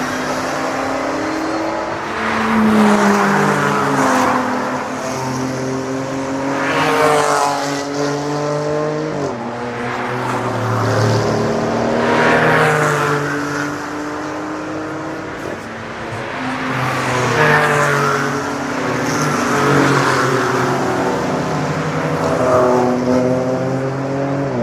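Race cars passing one after another at racing speed. Each engine note swells as a car approaches and drops in pitch as it goes by, about six passes in a row.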